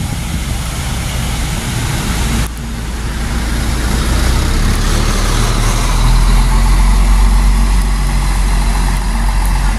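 Mercedes-Benz OC 500 RF 2542 double-decker coach's diesel engine running close by as the bus moves through the terminal, a steady low hum that grows louder in the second half. The sound changes abruptly about two and a half seconds in.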